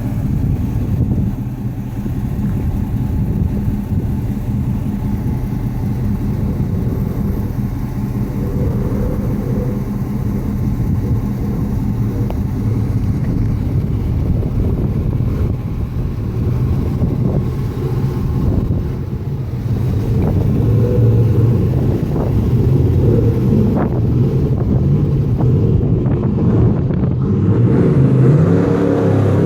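1969 Chevelle's 502 big-block V8 running while the car is driven, a steady low engine note that grows louder from about two-thirds of the way in as the car picks up speed.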